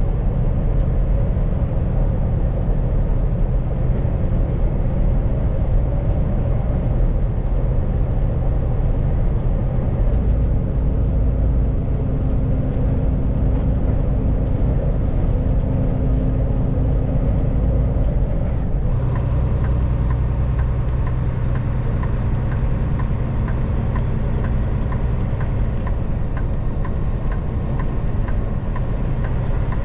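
Semi truck's diesel engine and road noise heard inside the cab, a steady low drone whose note shifts about a third of the way in and again about two-thirds of the way in as the truck slows. A light regular ticking joins the drone after the second shift.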